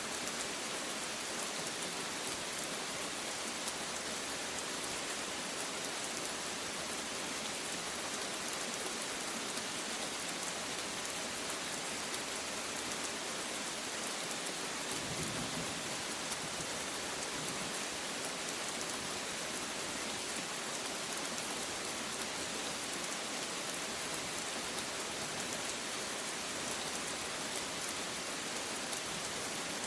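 Steady rain falling, an even hiss made of many fine drop ticks, with a brief faint low rumble about halfway through.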